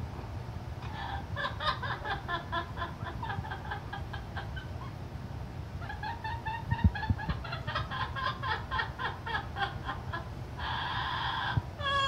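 Amazon parrot calling in two long runs of quick, evenly repeated short pitched notes, several a second, followed near the end by a brief harsh rasp.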